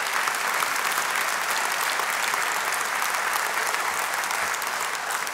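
A congregation applauding, many hands clapping in a steady patter that eases slightly near the end.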